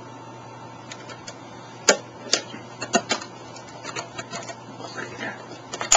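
Small plastic and metal parts from a gutted CD-ROM drive clicking and knocking as they are handled and set down, at an irregular pace, the sharpest knock about two seconds in.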